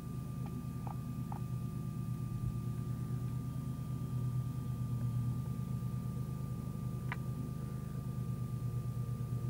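Steady low mechanical hum with a slight pulse and a thin, steady high tone above it, broken by a few soft clicks near the start and one about seven seconds in.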